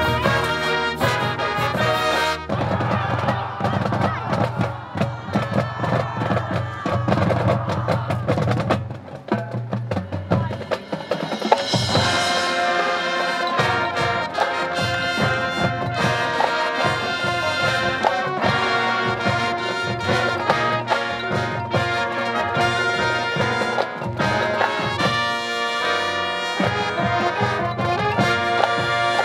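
High school marching band playing: brass over percussion. The sound drops back for a moment about nine seconds in, then the whole band comes back in with a loud accent.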